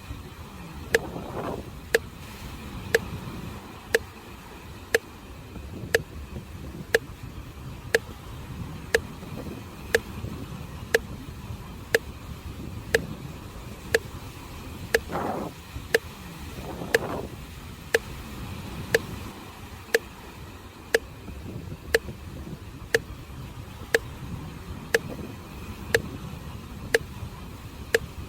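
Metronome clicking steadily at one beat per second, setting the pace for slow abdominal breathing, over the low steady wash of sea waves.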